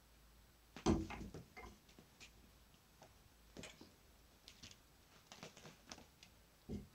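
Kittens playing with a padded fabric bag: a thump about a second in, then scattered taps, scuffs and rustles as they scramble over it.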